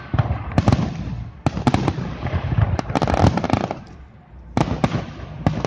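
Fireworks display: aerial shells bursting in quick clusters of sharp bangs, with crackling between them and a brief lull about four seconds in.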